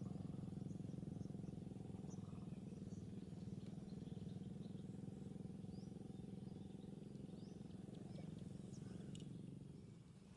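Faint, scattered short bird chirps over a steady low background hum.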